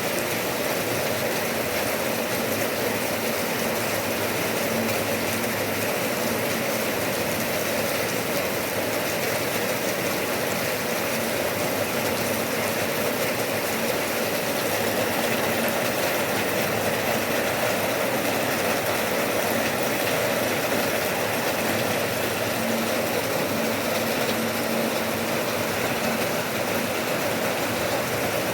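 Rain falling steadily, an even hiss with no single drops standing out.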